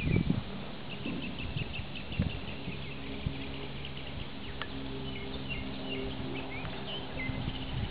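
Small birds chirping again and again in quick short notes. A steady low drone comes in underneath about two seconds in, and there are a couple of dull thuds at the start.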